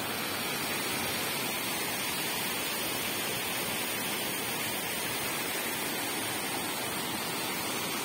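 Water pouring down a stepped rock waterfall: a steady, dense rushing hiss that does not change.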